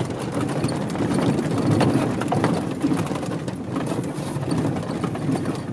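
Old pickup truck camper driving slowly over a snow-covered road, heard from inside the cab: a steady low engine and road rumble with frequent small knocks and rattles from the bumpy ride.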